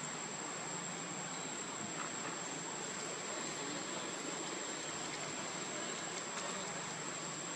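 Steady outdoor insect buzzing, with a constant high-pitched whine over an even background hiss.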